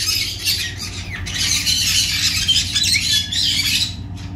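Parrots, most likely the Pyrrhura conures, squawking harshly and continuously, breaking off about four seconds in.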